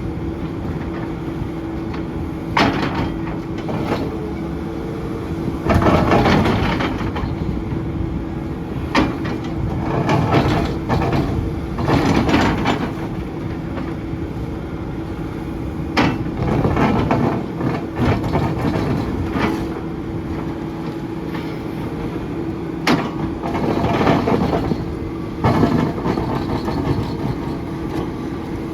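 SANY SY500H hydraulic excavator's diesel engine and hydraulics running with a steady hum, broken every few seconds by short scraping and knocking bursts from the ripper working the ground.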